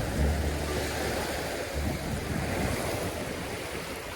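Surf washing onto a beach, a steady rushing noise, with wind buffeting the microphone in low rumbles twice.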